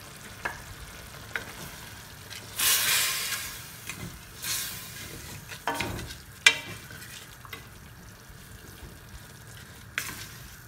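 Lentils and chicken in oil in a stainless steel pot, stirred with a wooden spatula: a low sizzle with scraping, louder in two surges about three and four and a half seconds in, and a few sharp knocks of the spatula against the pot soon after.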